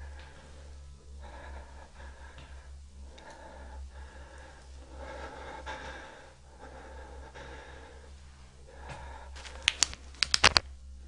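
A person's faint breathing over a steady low hum, then a quick run of about six sharp clicks near the end.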